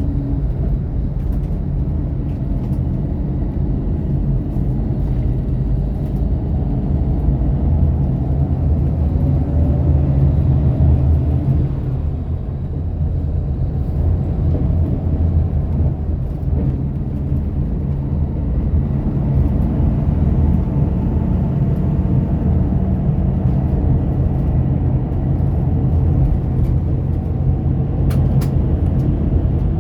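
Steady engine and road rumble of a moving bus, heard from inside the cabin, with a faint whine that rises and falls in pitch as the bus changes speed.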